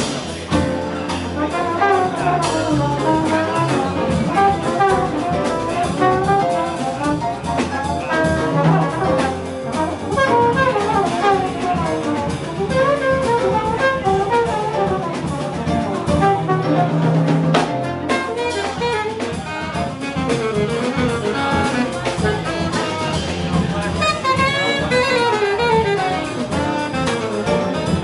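Live jazz sextet playing: trombone and saxophones carrying moving melodic lines over piano, double bass and drum kit.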